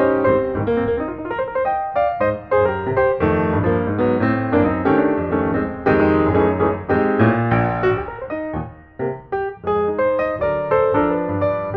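Background piano music: a steady run of struck notes over low sustained bass notes.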